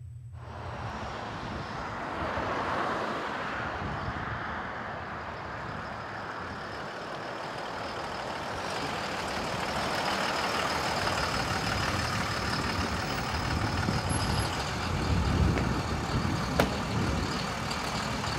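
Twin-turbo Cummins diesel engine in a lifted Dodge Ram pickup running as the truck drives, a steady rumble that grows gradually louder. A thin high whistle joins about halfway, and there is one sharp click near the end.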